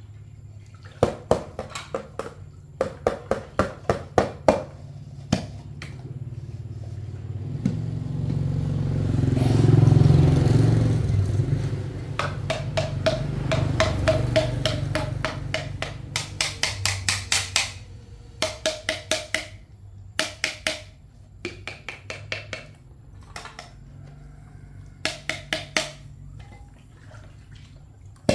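Rapid chopping with a blade on a board, in bursts of about five strikes a second, the pace of mincing meat. A motor engine hums beneath it, swelling to its loudest about ten seconds in and then fading.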